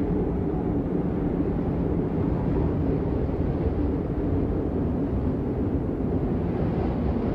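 Steady low rumbling wind-like ambience noise, even throughout with no distinct events.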